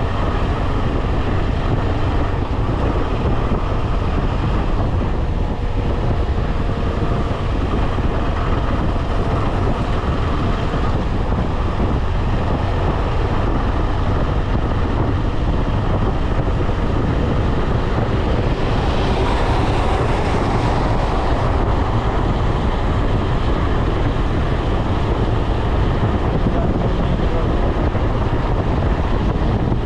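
KTM 250 Adventure's single-cylinder engine running steadily at highway cruise, mixed with heavy wind noise on the microphone. A brief louder hiss rises and fades about twenty seconds in.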